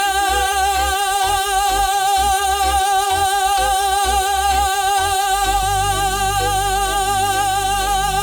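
Cumbia music: a high voice holds one long note with vibrato over a low bass line, which becomes fuller and steadier about two-thirds of the way in.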